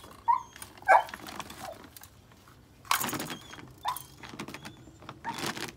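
A dog barking and yipping a few times in short, sharp calls, twice near the start and again about four seconds in, with a brief rustling noise just before the last call.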